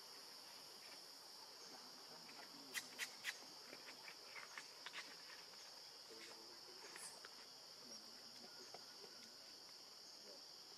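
Faint, steady high-pitched insect drone from crickets or cicadas. Three sharp clicks about three seconds in, followed by a few softer clicks.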